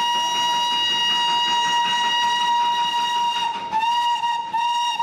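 Steam whistle of a Darjeeling Himalayan Railway 'toy train' steam locomotive, one long steady blast over a hiss of steam. About three and a half seconds in it breaks into short toots.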